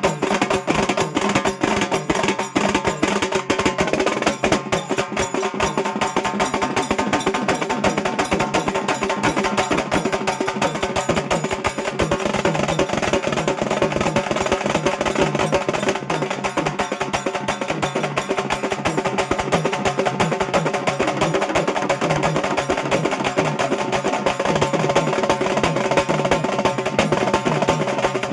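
Halgi frame drums beaten with sticks in a fast, unbroken rhythm, with a melody instrument holding steady notes over the drumming.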